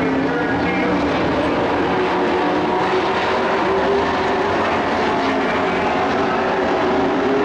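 Dirt-track stock trucks racing together: several engines at high revs blend into a loud, steady drone whose pitches shift slightly as the trucks pass.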